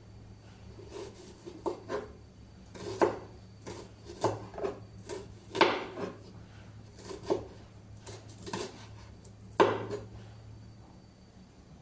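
Kitchen utensils and dishes clattering, knocking and scraping in an uneven series of a dozen or more strokes, the loudest about halfway through and another near the end, over a low steady hum.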